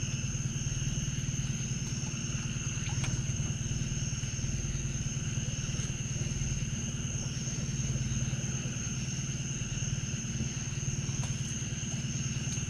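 Night insect chorus of crickets, two unbroken high trills, over the low steady hum of an idling boat motor.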